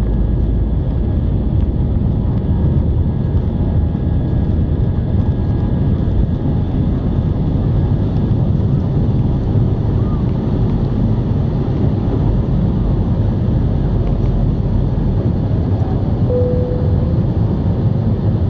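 Boeing 737 jet engines at takeoff power heard inside the cabin over the wing: a loud, steady low rumble through the end of the takeoff roll, the rotation and the first seconds of climb after liftoff. A short steady tone sounds briefly near the end.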